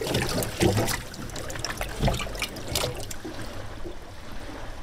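Shallow water sloshing and trickling in a plastic tub as a loggerhead sea turtle shifts its flippers, with a few sharp knocks in the first three seconds.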